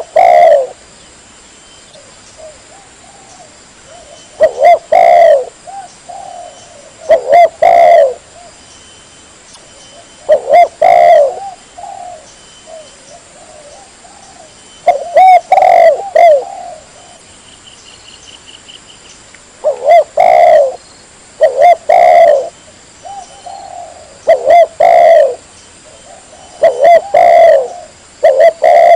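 Spotted dove (tekukur) cooing: loud phrases of a few short coos, repeated every two to four seconds.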